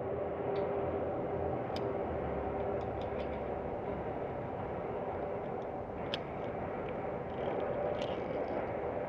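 Steady hum and rumble of a large indoor hall's ambience, picked up by a body-worn camera, with a few faint clicks scattered through.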